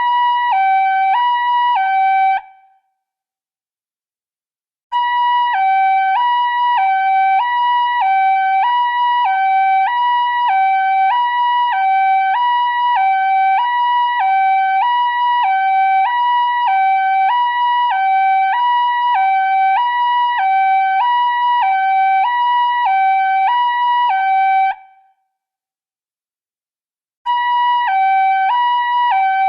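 Emergency alert system (EAS) alarm: a loud two-tone signal that switches between a low and a high pitch about twice a second. It sounds in long stretches, stops about two seconds in and again a few seconds before the end, and each time starts again after a gap of about two and a half seconds.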